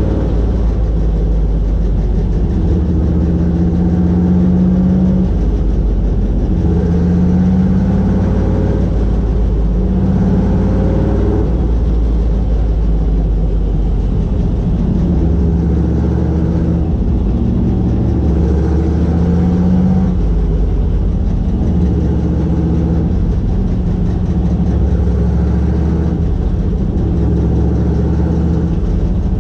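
Vintage modified race car's engine heard from inside the cockpit, running at low speed, its pitch rising and falling every few seconds as the throttle is worked.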